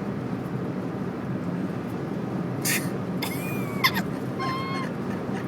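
Steady road and wind rumble inside a car's cabin at highway speed, about 75 mph. Near the middle come a short hiss and a few brief high pitched tones that glide and hold.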